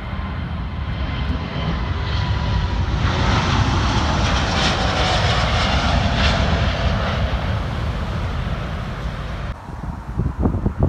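Twin-engine widebody jet airliner taking off at full thrust, its engine noise swelling about three seconds in and holding loud and steady. It cuts off abruptly near the end, followed by a few gusts of wind buffeting the microphone.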